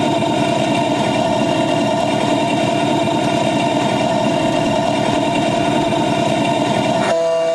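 Small engine of a ride-on miniature railway train running steadily, a dense hum with a strong steady whine over a fast low pulsing. Near the end the engine noise drops away abruptly, leaving only a steady tone.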